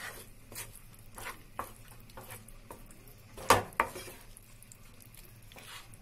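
A spatula stirring and scraping thick frying masala in a non-stick kadai, with repeated scrapes about every half second and a louder knock against the pan about three and a half seconds in, followed closely by a second.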